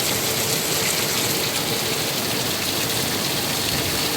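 Heavy rain pouring down and pattering steadily on surfaces, a dense even hiss.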